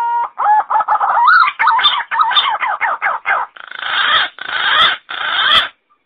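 Green pigeon calling: a run of quick, wavering whistled notes, then three longer harsh, rasping notes, stopping abruptly near the end.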